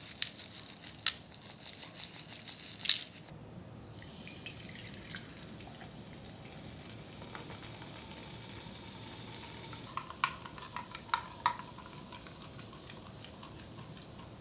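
Colourful sugar sprinkles shaken from a tube onto chocolate-topped ice candies: a quick run of rattling taps for about three seconds. Then Fanta Orange is poured into a glass measuring jug with a steady pouring and fizzing hiss, and a few sharp clinks against the glass come about two-thirds of the way through.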